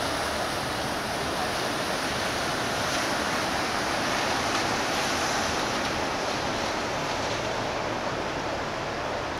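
Steady rushing noise from the MSC Bellissima cruise ship moving slowly past close by: water washing along its hull, blended with the ship's running noise.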